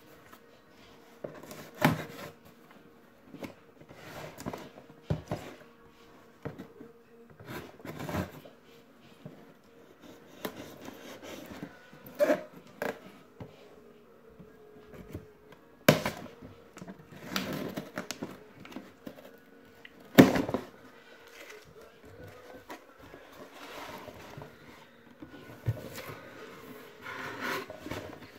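Cardboard parcel box being opened and its packaging handled: irregular rustling and scraping of cardboard and wrapping, broken by sharp knocks and clatters, the loudest two a little after the middle.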